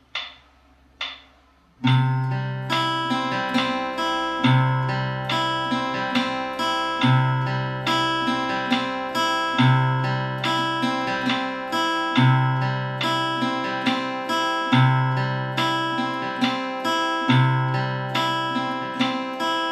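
Acoustic guitar fingerpicked in a steady, repeating arpeggio pattern, a low bass note beginning each cycle about every two and a half seconds. It follows two sharp clicks about a second apart that count it in.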